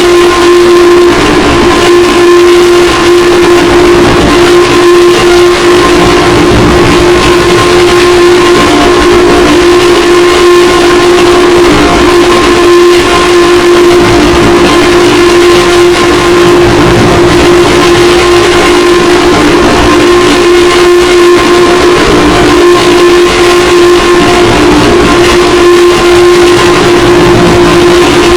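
Mock Emergency Alert System alarm: one loud, unbroken, steady alarm tone at a single pitch, heavily distorted.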